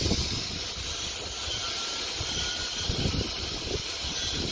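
Steady hiss over a low rumble of running machinery, holding at an even level.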